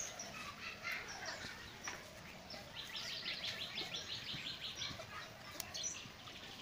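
Small birds chirping and calling, with a fast run of repeated chirps about three seconds in.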